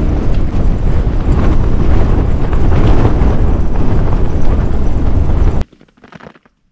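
Strong wind buffeting a tent, heard from inside: a loud, deep rushing rumble of gusts on the tent and microphone that cuts off abruptly near the end.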